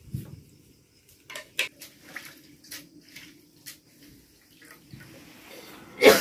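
Hands working fresh green herbs in a steel bowl: scattered light clinks of the metal bowl with some rustling and a little water. A loud voice breaks in at the very end.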